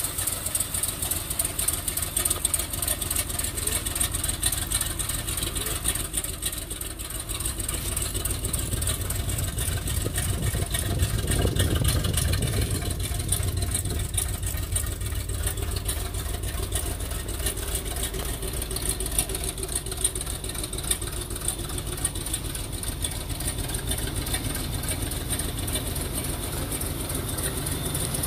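Chevy pickup truck engine idling steadily, a little louder about halfway through.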